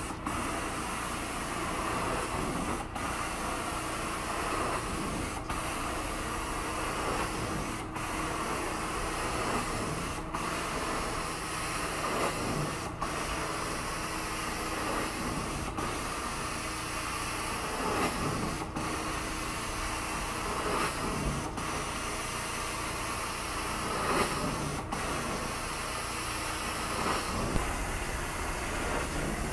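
Hot-water extraction carpet-cleaning wand spraying and sucking as it is drawn across carpet: a steady rushing hiss, with a brief break about every two and a half seconds.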